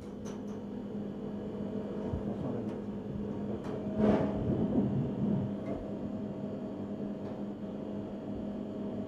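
Steady low hum of a kitchen extractor or ventilation, with a few faint clicks and a brief scraping rustle about four seconds in as a spoon spreads sauce on a plate.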